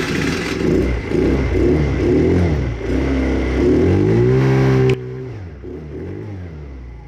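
Chinese 50cc four-stroke scooter engine (QMB139 type), freshly started after a stator replacement and top-end rebuild, blipped repeatedly on the throttle so the revs rise and fall, with one long high rev near the middle. About five seconds in, the level drops suddenly and smaller revs carry on more quietly.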